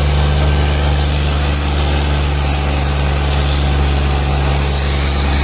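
Fiat 480 tractor's three-cylinder diesel engine running steadily under heavy load while pulling a disc harrow through soil.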